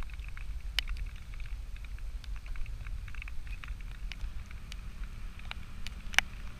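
Low rumble of wind on the microphone while riding a bicycle, with scattered sharp clicks, the loudest one near the end.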